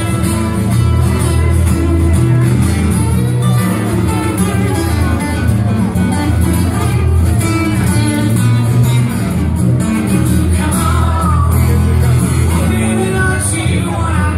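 Music with guitar and a singing voice over a steady bass.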